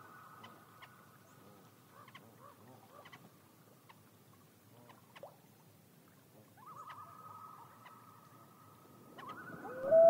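Common loon wailing: a faint, drawn-out wail in the second half, then near the end a louder wail swells in, rising in pitch.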